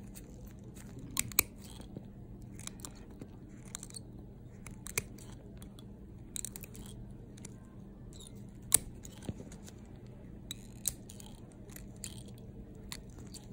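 Steel toenail nippers cutting through a thick, crumbly fungal toenail: a series of irregular sharp crunching snaps as the brittle nail breaks away, the loudest one about two-thirds of the way through.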